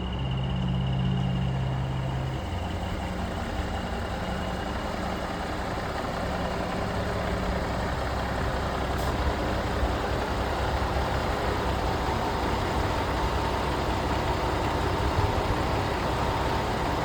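Freightliner truck's diesel engine running steadily at idle.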